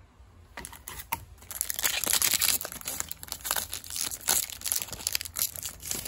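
Crinkling and tearing of plastic and foil card packaging being handled and crumpled, a dense crackle loudest through the middle.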